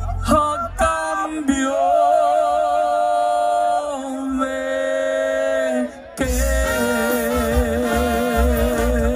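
Live Mexican regional band music between sung lines: a melody of long held notes with a wide vibrato over little or no bass for about the first six seconds, then after a brief break the bass and full band come back in.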